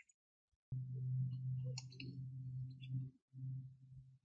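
A person's low closed-mouth hum while chewing: one long steady 'mmm', a brief break about three seconds in, then a shorter one, with a few faint mouth clicks.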